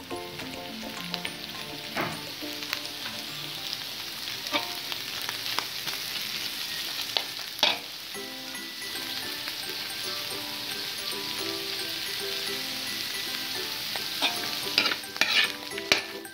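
Meat, carrots and onions sizzling as they are stir-fried in a stainless steel wok, with a metal spatula clinking and scraping against the pan now and then and several times near the end.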